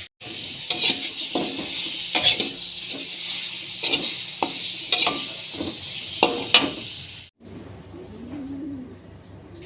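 Chicken sizzling as it fries in a pan, with a spatula knocking and scraping against the pan again and again as it is stirred. It cuts off abruptly about seven seconds in, and a bird is heard cooing in low, wavering calls.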